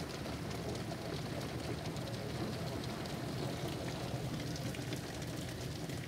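Heavy rain falling in a steady downpour.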